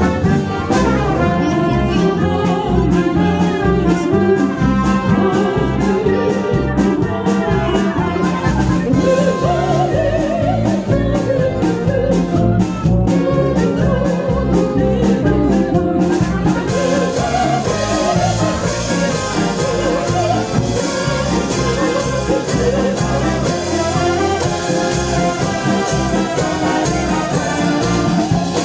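Artistic whistling: a whistled melody over an instrumental band accompaniment with a steady beat. The accompaniment grows fuller and brighter about halfway through.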